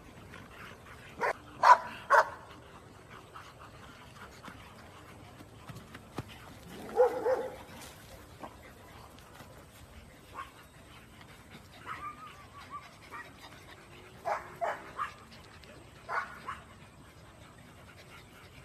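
Golden retrievers, puppies among them, barking and yipping. A few loud, sharp barks come in the first couple of seconds, then scattered short yips and whines with quiet gaps between them.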